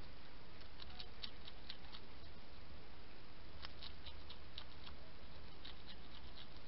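European hedgehog chewing and crunching food, a run of small sharp clicks in short bursts.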